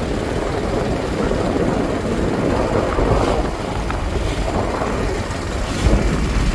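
Motorboat engine running steadily while under way on the river, with wind noise on the microphone.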